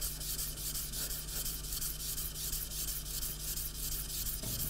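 Steel chisel back being rubbed in rapid back-and-forth strokes on abrasive paper over a glass plate, a steady gritty scratching: the back is being flattened and polished.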